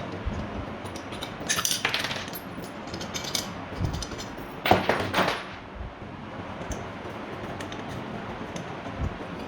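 Small metal parts and tools clinking and rattling as they are handled, in three short clusters, the loudest about five seconds in.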